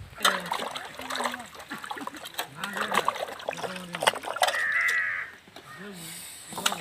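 A person's voice talking in short phrases, with scattered sharp clicks and knocks, and one harsh crow caw about four and a half seconds in.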